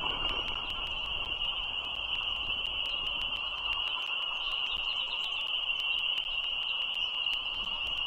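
Outdoor frog chorus: many high calls blending into one steady peeping drone, with lower background noise and faint scattered clicks.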